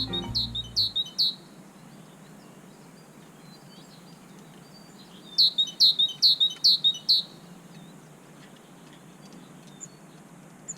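A songbird calling: a quick, even run of short high chirps, each falling in pitch, about four of them at the start and a longer run of about seven a little past the middle.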